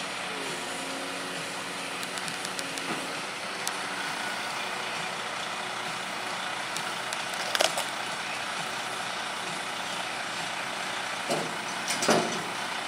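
Diesel engine of a crane-equipped boom truck running steadily. A few sharp knocks or clanks come about seven and a half seconds in and again near the end.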